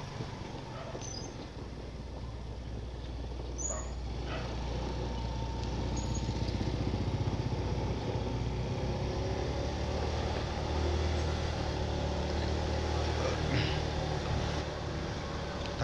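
Engine of the moving vehicle carrying the camera, running steadily as it drives down a concrete road, with road noise around it; the hum grows a little louder about halfway through.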